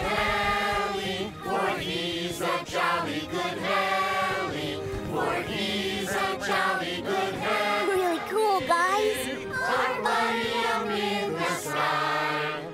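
A group of voices singing together to backing music.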